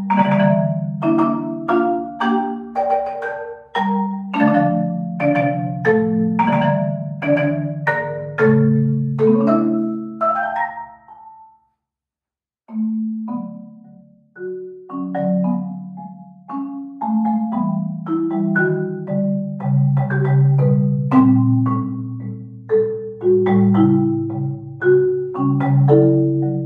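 Large concert marimba played with four yarn mallets: a tango melody with chords over a ringing low bass line. The playing stops for about a second near the middle, then starts again softly and builds.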